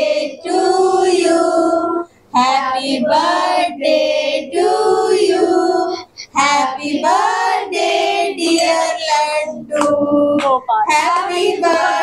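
A child singing a song with long held notes, breaking off briefly about two seconds in and again about six seconds in.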